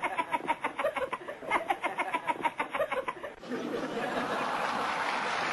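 Hearty laughter in quick, regular ha-ha pulses. About three and a half seconds in, it gives way to steady applause.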